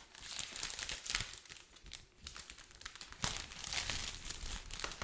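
Thin clear plastic protective wrap being peeled off a new MacBook Pro's aluminium lid, crinkling and rustling in uneven bouts, loudest in the last couple of seconds.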